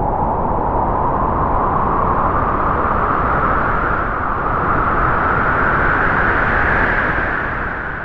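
A long gust of howling wind: a rushing noise whose pitch rises slowly and then sinks again, fading near the end.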